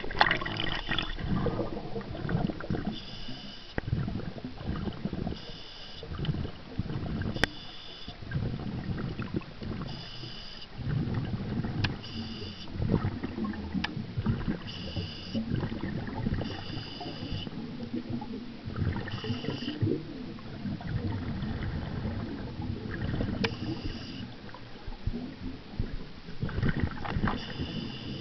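Scuba diver breathing through a regulator underwater: a short hiss every few seconds and, between them, bursts of low rumbling exhaled bubbles. A few sharp clicks, the clearest about seven seconds in.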